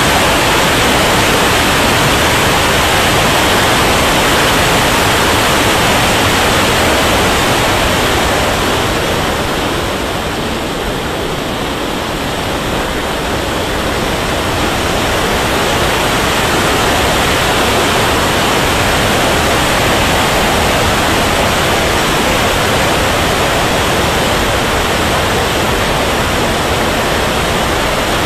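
Loud steady rush of airflow and turbine noise on board a radio-controlled turbine jet in flight, easing for a few seconds near the middle.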